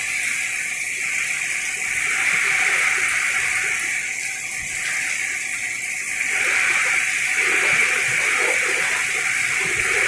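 Heavy rain falling in strong wind: a loud, steady rushing hiss that swells a little about two seconds in and again from about six and a half seconds.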